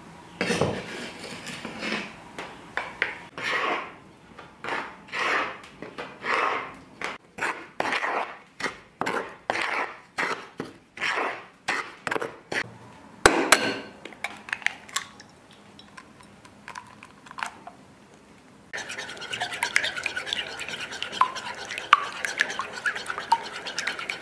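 Wooden spoon scraping and stirring through flour in a wooden bowl, in even strokes about one and a half a second, with a sharp knock about thirteen seconds in. About three-quarters of the way through, it gives way to a utensil quickly stirring a liquid mixture in a ceramic bowl, a continuous swish with small clinks against the bowl.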